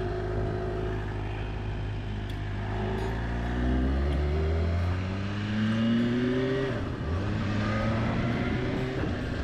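Kawasaki H2's supercharged inline-four engine accelerating, its pitch climbing steadily, dropping briefly about seven seconds in as it shifts gear, then climbing again.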